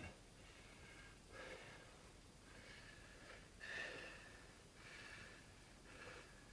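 Faint, short breaths and sniffs through a nose stuffed with rolled toilet paper, about one a second, the strongest just past the middle. This is a man working up to a sneeze that does not come.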